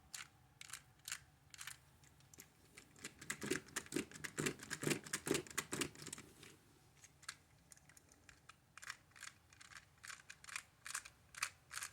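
Light, irregular plastic clicks and taps from the small Dino-Chi toy being handled and worked, thickest about three to six seconds in.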